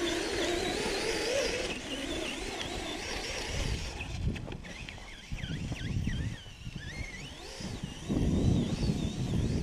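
Brushless electric motors of RC trucks whining, their pitch rising and falling as the throttle is worked. In the second half, low rumbling gusts of wind buffet the microphone.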